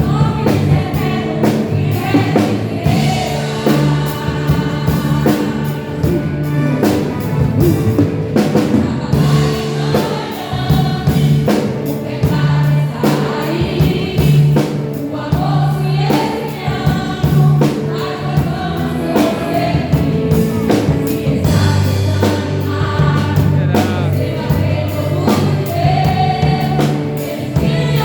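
Women's church choir singing a gospel hymn over instrumental accompaniment, with steady bass notes and a regular beat.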